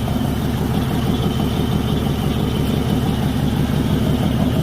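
A vehicle engine idling steadily: a low rumble with rapid, even firing pulses.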